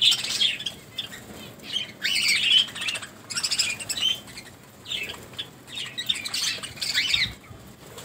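A flock of budgerigars and cockatiels at a seed tray, chirping and chattering in repeated bursts of high calls, with some wing flapping.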